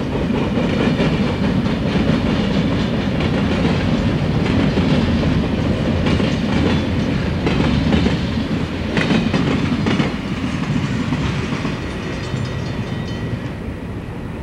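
Southern Pacific freight cars rolling past at close range, a dense steady rumble with sharp knocks of wheels over rail joints, strongest about eight to ten seconds in. The sound grows fainter over the last few seconds as the bay-window caboose at the tail of the train passes.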